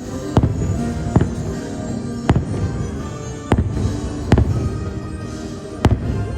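Fireworks bursting: six sharp bangs at uneven intervals over the show's soundtrack music.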